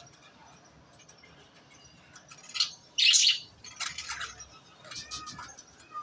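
Albino red-eyed budgerigars chirping in four short bursts after a quiet start, the loudest about three seconds in.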